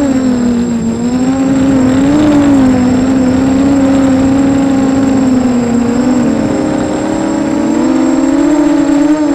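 FPV racing quadcopter's motors and propellers whining, with the pitch wavering up and down as the throttle changes: dipping about half a second in, rising again around two seconds, dipping near seven seconds and climbing back near the end.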